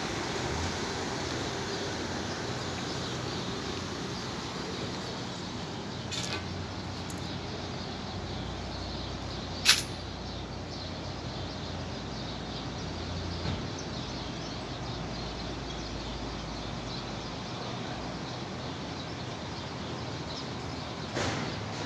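Steady outdoor background noise with a low hum underneath, broken by one sharp knock about ten seconds in and a couple of fainter knocks.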